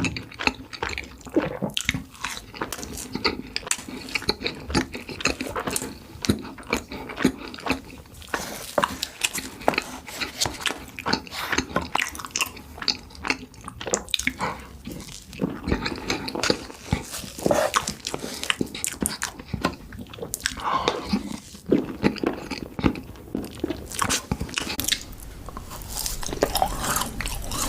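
Close-miked ASMR eating of yakgwa, Korean fried honey cookies: biting and chewing heard as a dense run of short clicking mouth sounds.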